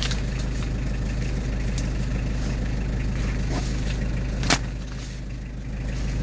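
The Nissan LD20 2.0-liter naturally aspirated diesel of a 1992 Nissan Vanette truck idling steadily, with one sharp click about four and a half seconds in.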